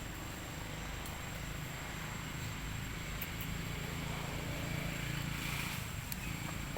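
Low steady engine hum, swelling slightly in the middle and easing off near the end, with a few faint clicks.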